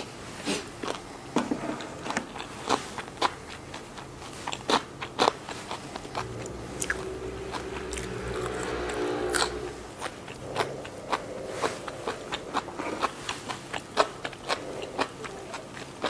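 Close-up chewing and crunching of Vietnamese fresh spring rolls: soft rice paper with crisp raw lettuce, herbs and shrimp, giving many sharp, irregular crunches. A steady low hum runs for a few seconds in the middle.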